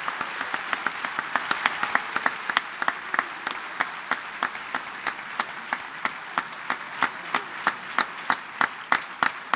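Opera house audience applauding, with one pair of hands close by clapping loudly and steadily, about three claps a second.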